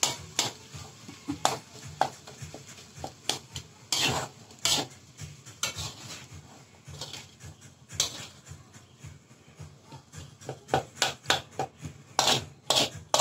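Metal spatula scraping and knocking against an aluminium wok as fried rice is stirred and turned, in irregular strokes that come quicker near the end.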